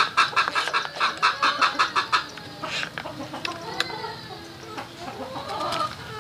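Chickens clucking: a fast, even run of about five clucks a second for the first two seconds, then quieter scattered clucks and calls.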